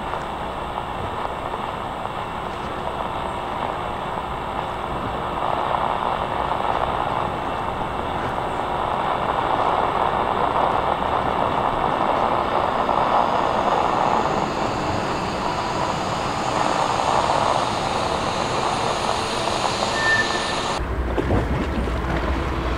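Steel vertical-lift railroad bridge span being lowered: a steady mechanical rumble and rush from the lift machinery and cables that grows louder partway through, with a brief high squeal near the end. About a second before the end the sound cuts abruptly to a low rumble.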